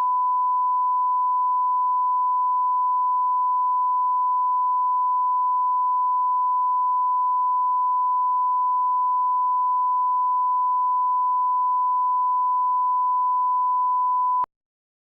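Steady 1 kHz line-up reference tone, one pure unchanging pitch at about −20 dB full scale, which cuts off abruptly near the end.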